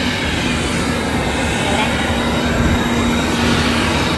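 Steady rumbling roar of airliner noise on the apron at the boarding stairs, with a constant low hum that drops out shortly before the end.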